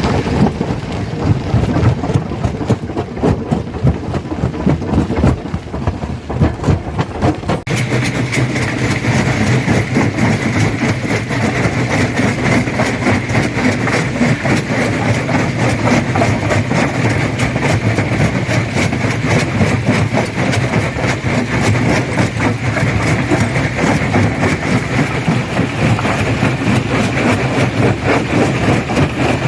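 Stone crusher running and breaking rock: a steady heavy machine noise with many rapid cracks and knocks of stone being crushed. The sound changes abruptly about eight seconds in to a steadier engine hum with a higher whine over the crushing.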